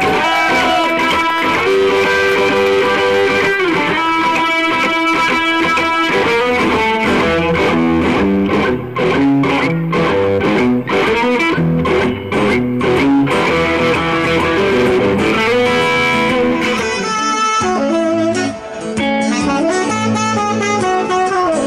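Live instrumental music from a small band: an electric guitar playing lead lines over a strummed acoustic guitar. About 17 seconds in the sound changes and a saxophone comes to the fore.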